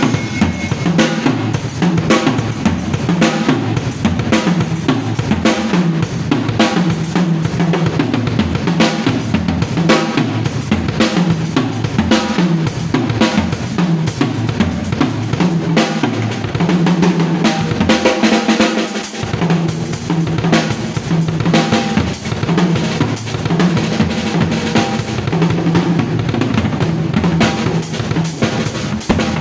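Drum kit played without a break, with kick drum and snare hit in fast, dense strokes.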